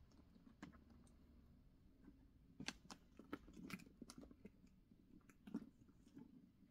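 Faint, scattered clicks and rustles of hands handling a leather handbag and its metal hardware, about half a dozen small ticks spread over a few seconds.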